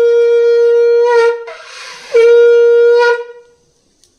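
Conch shell (shankh) blown in a loud, steady, single-pitched note. It breaks off about a second in, there is a breath, then it sounds again for about a second and fades out.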